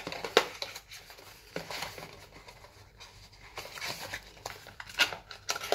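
Hands opening a small cosmetic product package: scattered light clicks and rustles of handled packaging.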